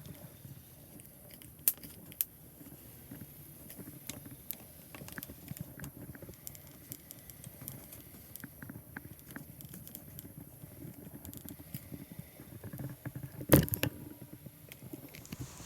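Scattered light clicks, taps and rustling of things being handled, with two sharp clicks about two seconds in and one louder knock near the end.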